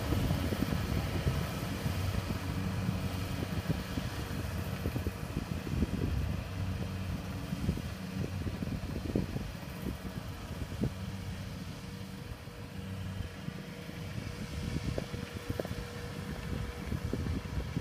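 Rice combine harvester's engine running steadily under load as it cuts, a low drone with a steady hum above it, fading somewhat as the machine pulls away.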